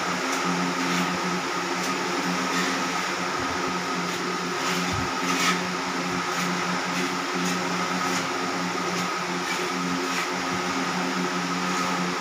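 Steady mechanical hum of a running motor, with scattered faint clicks.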